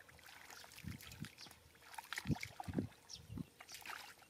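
Hands groping and sloshing through wet mud and muddy water in shallow pool, with irregular splashes and several low wet slaps, the loudest a little past two seconds in.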